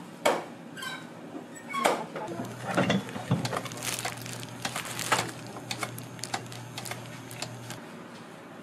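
Whipped-cream dispenser running with a steady low hum for several seconds while cream is piped onto a slice of sponge cake, with sharp clicks and rustles of handling around it.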